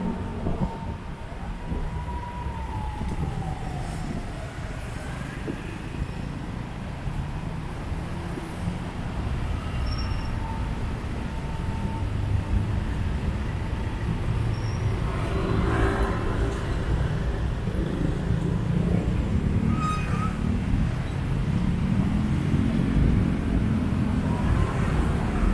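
Steady road traffic noise, a low rumble of passing vehicles, growing a little louder in the second half, with a brief falling tone about two seconds in.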